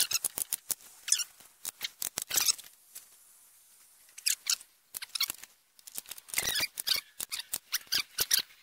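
Metal sockets and hand tools clinking and clicking as they are handled in a toolkit: a string of sharp clinks, with a quiet stretch about three seconds in.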